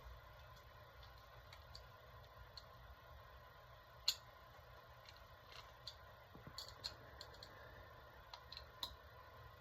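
Faint, irregular clicks and ticks of small metal engine parts being handled during reassembly, one sharper click about four seconds in, over a low steady hum.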